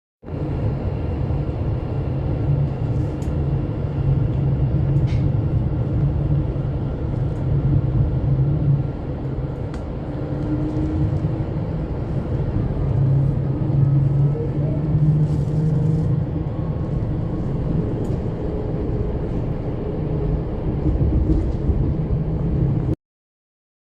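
Train at a station platform, a steady low rumble with faint higher tones over it, cutting off suddenly near the end.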